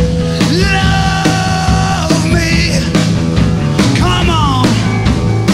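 Rock band playing live: drums and bass under a lead line of held notes that bend and slide, with a falling slide about four seconds in.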